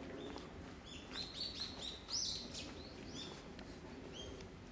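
Small birds chirping in the trees, a run of short, quick calls that bunch together in the middle, the loudest about two seconds in, over a faint low background rumble.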